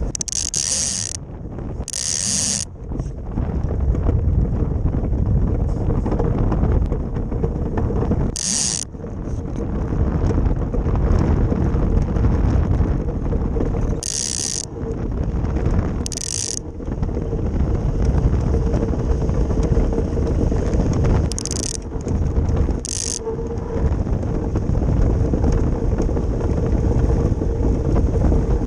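Ice boat's steel runners rumbling steadily over smooth lake ice as the boat sails, with a faint steady hum. Brief high hisses come and go about eight times.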